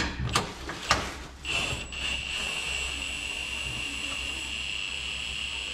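A cordless power tool's motor whining steadily from about a second and a half in, after a few sharp knocks and clicks of metal parts, as fasteners under the truck are driven while the transmission is being dropped.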